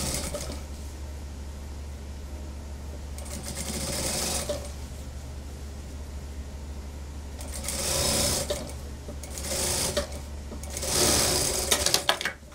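Industrial flatbed sewing machine stitching a suit's seam in about five short runs of a second or so, pausing between them while the fabric is eased and guided by hand. A steady low hum runs underneath, and a few sharp clicks come as the machine stops near the end.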